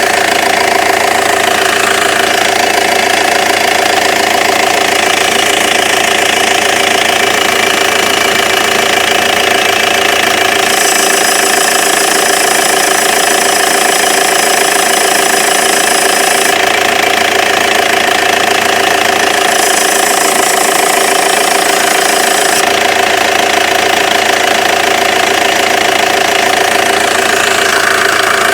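2.0 TDI diesel engine idling steadily, with a turbocharger whistle and hiss over it that appear when the pressure hose is pulled off the N75 boost control valve.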